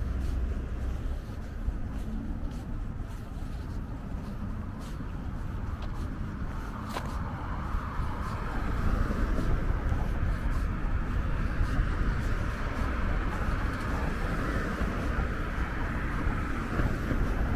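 Road traffic on a busy city boulevard: a steady low rumble of passing cars with tyre hiss that swells from about halfway on. A single sharp click about seven seconds in.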